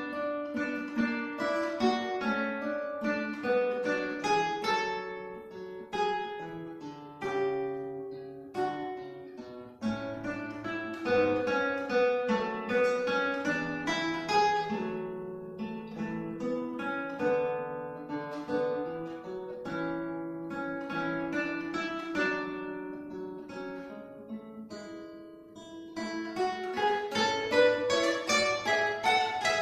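Guitar duet: two acoustic guitars playing a lyrical piece, plucked melody notes over a bass line. About 26 seconds in, a quick rising run of notes comes in and the playing grows louder.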